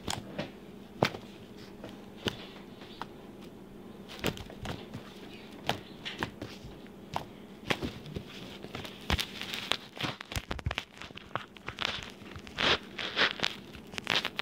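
Purple slime being squeezed and kneaded by hand, giving irregular sharp clicks and pops from trapped air. They come a few seconds apart at first, then grow busier and louder in the second half.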